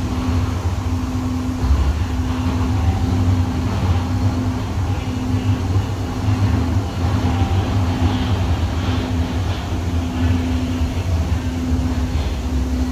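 Interior running noise of a Muni Siemens S200 light rail car in motion: a steady low rumble from the wheels and running gear, with a low hum that cuts in and out about once a second.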